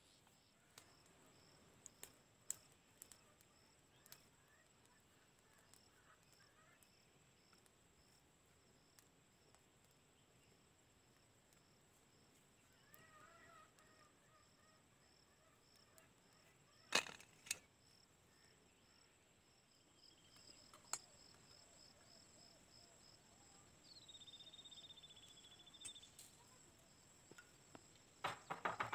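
Faint outdoor ambience of insects: a steady high trill with short high chirps repeated evenly a few times a second. A few scattered clicks, with two sharp clicks a little after halfway.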